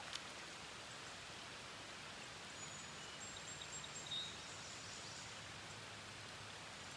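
Light rain falling steadily on a shallow river's surface, an even soft hiss. A few faint high chirps come in a little over halfway through.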